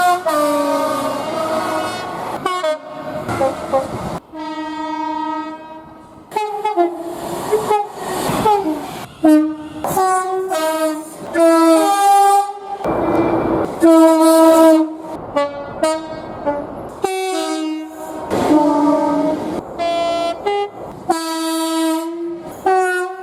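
Train air horns sounding one chord after another, each blast several notes held together. The blasts come from short clips joined with abrupt cuts, so the chord and loudness change suddenly every second or two. A stretch of rushing noise comes about halfway through.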